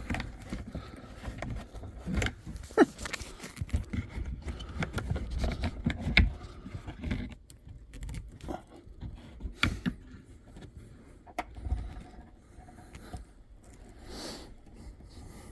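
Handling noise of hands fumbling in a tight plastic trim opening to plug in an antenna cable connector: irregular rustling and scraping with light plastic clicks and taps.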